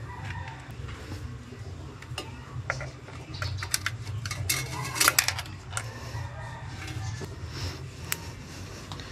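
Scattered light metallic clicks and clinks of hands handling a CPU air cooler, tools and a steel PC case during installation, over a steady low hum.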